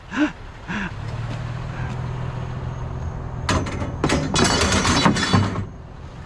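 A vehicle engine idling steadily, with a burst of metal scrap clattering and clanging for about two seconds past the middle, the pieces ringing as they knock together.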